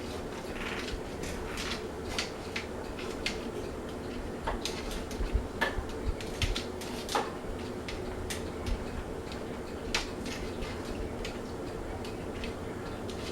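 Fasco Charleston ceiling fan running with a steady motor hum, while irregular sharp clicks and light clinks come and go over it, most of them between about four and eight seconds in.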